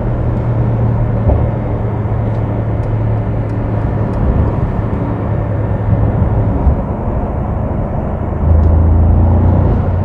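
Mercedes-AMG SL63's twin-turbo V8 running steadily on the move, heard from inside the cabin over road noise. About eight and a half seconds in, the engine note drops lower and gets louder.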